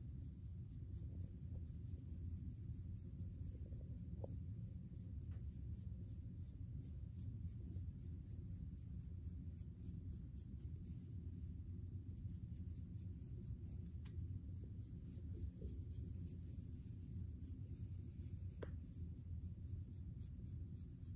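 Plastic fine-toothed comb scratching through short hair and over the scalp, combing out dandruff flakes: a rapid run of faint scratchy strokes over a low steady rumble.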